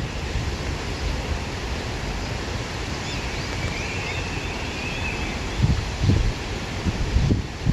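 Wind blowing through grass and foliage, a steady rushing noise. Gusts buffet the microphone as low rumbles in the second half, and a few faint high chirps sound in the middle.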